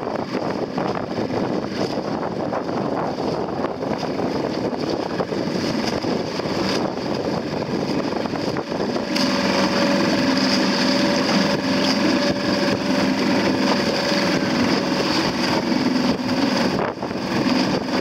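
Small boat's outboard motor running steadily while towing a dinghy, with wind buffeting the microphone and water rushing past. The engine gets a little louder about nine seconds in.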